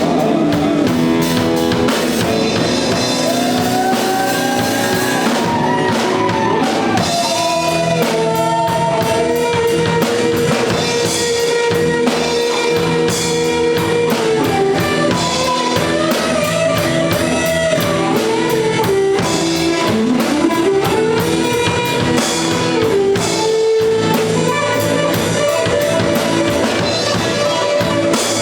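Blues band playing an instrumental passage: a lead guitar line with bent, sliding notes over a steady drum kit beat.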